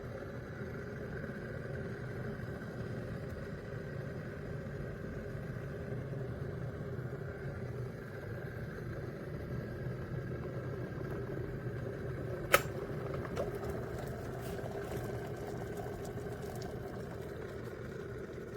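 Severin WK 4322 electric kettle heating water, a steady rumbling hiss. About twelve and a half seconds in there is one sharp click, the loudest moment, followed by a fainter one a second later.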